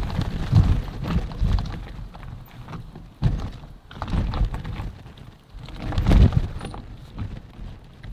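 Mountain bike clattering over a rough, stony off-road trail: irregular knocks and rattles from the tyres and frame, with wind buffeting the microphone.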